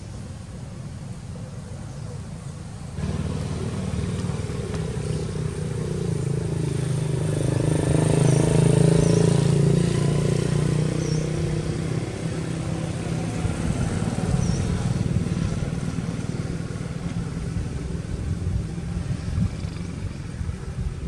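A motor vehicle's engine passing by on the road, growing louder to its loudest about eight seconds in and then slowly fading.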